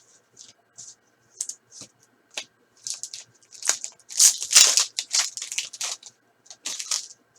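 Crinkling and tearing of a foil trading-card pack wrapper as it is opened, heard as a string of short rustles, loudest and densest from about four to six seconds in.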